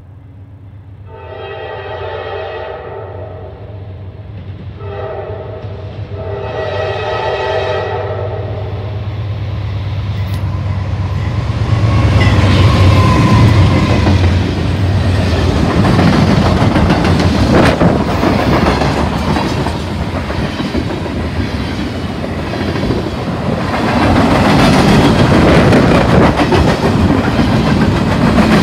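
Diesel freight train approaching and passing: the locomotive's multi-chime horn sounds twice in the first eight seconds, a shorter blast then a longer one. The locomotives' engine drone grows, and from about twelve seconds in the freight cars roll by close with loud wheel clickety-clack and rumble.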